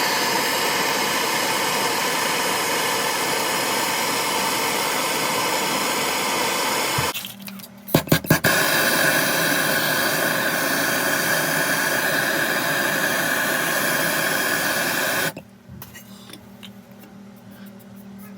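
Shower water spraying from the head, stopped about seven seconds in with a few knocks from the valve, then turned back on with a steady whistle in the flow, and shut off again near the end.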